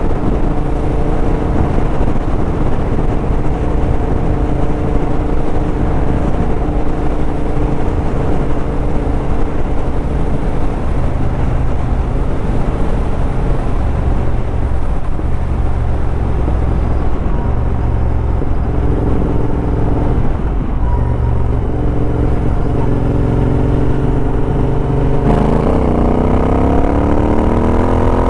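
Royal Enfield Interceptor parallel-twin engine, bored out to 865cc and breathing through high-flow headers and mufflers, running steadily under way in sixth gear. In the last few seconds the engine note rises as the bike accelerates.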